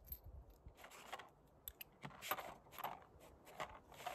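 Brass .38 revolver cartridges clinking and scraping in an ammunition box as fingers fish them out: a scatter of faint small clicks and rustles.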